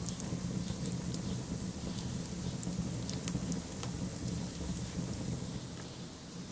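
Steady low rushing noise with many scattered sharp crackles and ticks.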